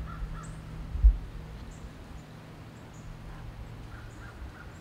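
Crows cawing faintly, a few short calls at the start and again near the end, over a low rumble. A low thump about a second in is the loudest sound.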